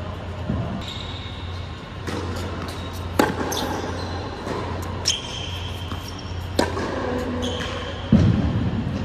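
Tennis ball struck back and forth with rackets in a rally on an indoor hard court: about four sharp pops spaced one and a half to two seconds apart, ringing in the hall, over a steady low hum.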